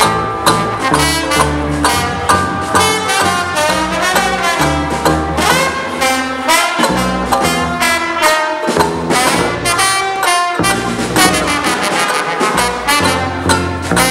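Live small swing band playing an instrumental passage: trumpet and trombone carry the melody over a double bass line, snare drum and rhythm ukulele, with no singing.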